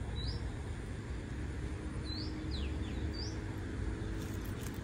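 A bird chirping: short rising notes about a second apart and a couple of quick falling calls, over steady low background noise. A few sharp clicks near the end.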